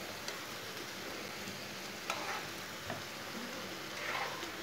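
Grated raw-potato patties sizzling steadily as they shallow-fry in hot oil in a nonstick pan, with a few light clicks.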